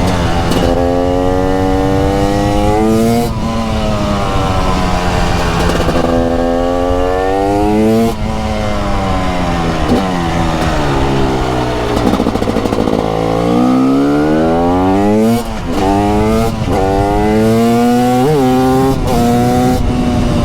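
Raw exhaust note of a TM SMR 300 supermoto's 300 cc two-stroke single-cylinder engine under way. It revs up repeatedly with short breaks at the gear changes, falls in pitch as the bike slows about ten seconds in, then accelerates hard again.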